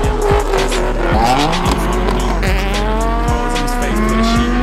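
Audi R8's engine accelerating hard, its pitch rising steadily through the second half, over rap music with a heavy, regular beat.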